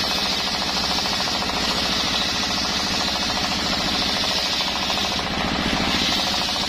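Single-cylinder diesel engine running steadily with a rapid, even chugging beat, driving a circular saw blade as it rips lengthwise through a teak log.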